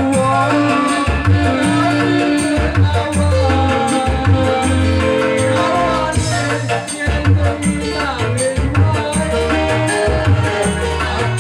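Music with a steady beat, bass and a melody.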